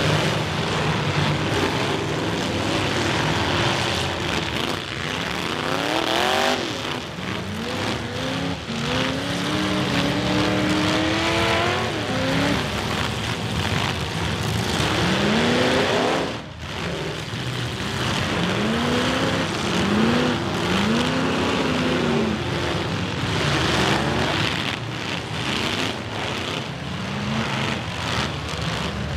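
Several full-size demolition derby cars' engines revving hard, their pitch rising and falling again and again, over a steady din of engines and tyres. Short knocks and crunches of metal hitting metal come throughout as the cars collide.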